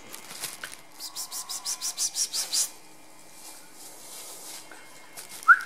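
A quick run of about a dozen sharp kissing or chirping clicks, about eight a second and growing louder, of the kind made to catch puppies' attention; a high whistle-like tone starts right at the end.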